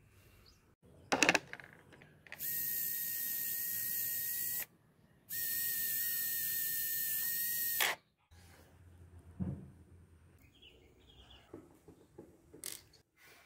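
Analog RC micro servo's gear motor whining in two runs of about two seconds each, with a steady high tone, as it is driven from the transmitter stick. A sharp click about a second in.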